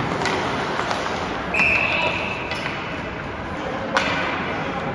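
Ice hockey referee's whistle: one steady blast of about a second that stops play, heard over rink noise and voices. A sharp knock follows near the end.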